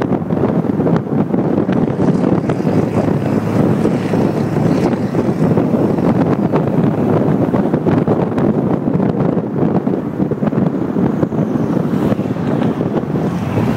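Steady wind rush and road noise from a moving vehicle at speed, with wind buffeting the microphone.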